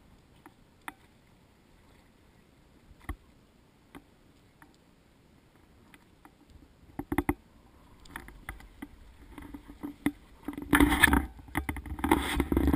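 A few scattered knocks aboard a small boat, then louder bursts of rushing noise over the last few seconds.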